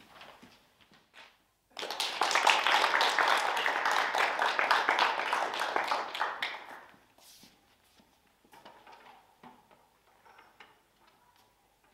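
Applause from a small audience, starting suddenly about two seconds in and dying away about five seconds later. After that it is quiet, with a few faint taps and rustles.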